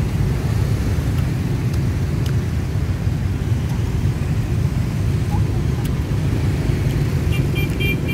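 Dense motorbike and scooter traffic rumbling steadily past at close range on a busy city street, with a few short horn beeps near the end.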